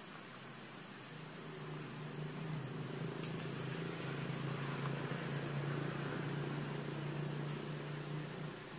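Steady chorus of insects such as crickets, with a constant high-pitched whine over a hiss. Underneath, a low hum swells about a second in and eases off near the end.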